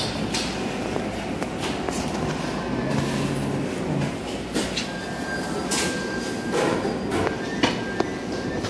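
Restaurant serving-line ambience: a steady hum with scattered clinks and clatter of metal utensils against steel food pans, and a thin high tone held briefly a couple of times.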